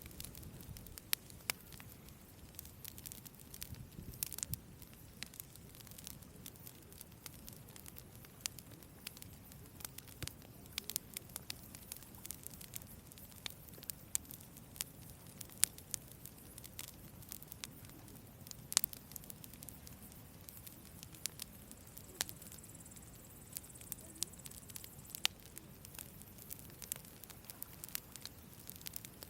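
Wood campfire burning: irregular sharp crackles and pops over a low, steady rush of flame.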